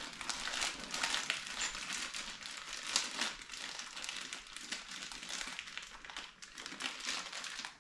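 Plastic parts bags crinkling and rustling as they are handled, with many small crackles and ticks.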